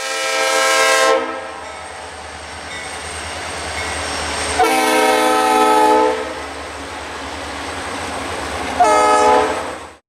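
Locomotive horn blown three times: two longer blasts and a shorter one near the end. A train's low rumble runs underneath and grows louder between the blasts.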